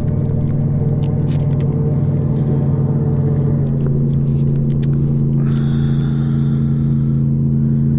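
A steady low motor hum that holds the same pitch throughout, with scattered light clicks and a short hiss a little past the middle.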